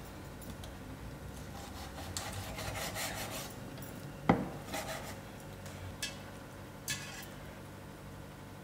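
Scraping and rubbing as raw chicken gizzards are cleaned of their yellow lining in a dish, with a sharp knock a little past the middle and two lighter clicks after it.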